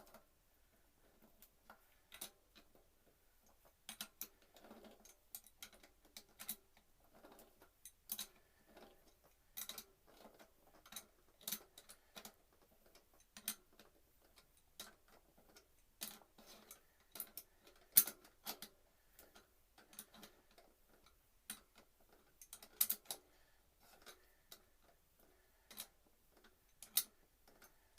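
Irregular sharp clicks and light metallic taps of hand tools working on a mountain bike's rear hub axle bolts, with a few louder knocks.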